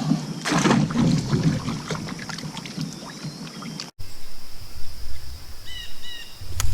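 Water splashing and knocking against a kayak while a fish is brought in, a rapid jumble of clicks and knocks. After a sudden cut about four seconds in, calmer water with a steady high insect buzz and two brief chirps.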